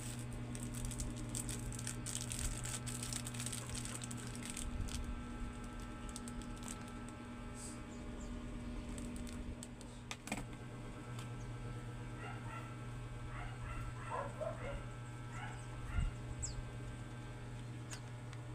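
Faint clicking and rustling over a steady low hum, then in the last third a dog giving short, high whimpers and yips in quick little groups.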